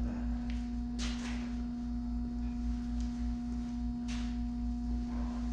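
2008 GMC Yukon Denali's V8 idling, a low exhaust rumble under a steady humming tone, with a couple of faint clicks.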